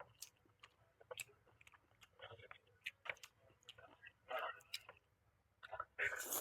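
Close-up eating sounds: chewing with scattered wet clicks and smacks of the mouth, and a few brief louder bursts.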